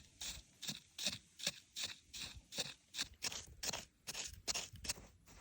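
A run of short, dry crunching strokes at a steady pace of about two to three a second.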